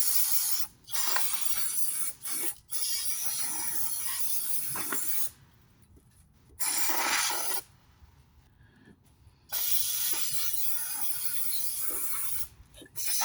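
Aerosol can of carburetor and choke cleaner spraying in several bursts, a steady hiss: a long one of about four seconds at the start, a short one in the middle and another of about three seconds near the end. It is degreasing the oily engine block around the dipstick tube hole.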